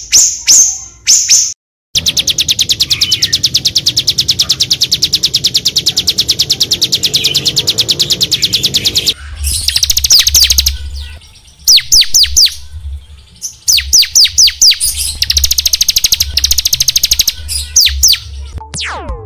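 Small songbird singing fast, high notes. A quick series of ticks is followed, after a brief break, by a very rapid continuous high trill lasting about seven seconds. Then come bursts of quick downward-sweeping notes in groups.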